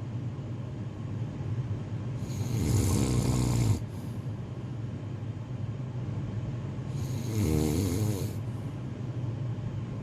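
A person snoring in slow, regular breaths. Two louder snores come about two seconds in and about seven seconds in, each lasting about a second and a half, with quieter breathing between them.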